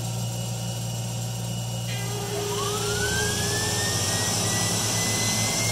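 Separately excited DC traction motor of a 1982 UM Electrek revving up over a steady low hum. About two seconds in, its whine rises quickly in pitch, then keeps creeping higher as the motor speeds up.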